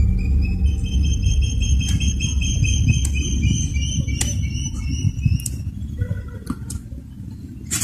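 Dark horror-film soundtrack: a low rumbling drone with a high, fluttering trill laid over it for the first five seconds or so, and a few sharp clicks.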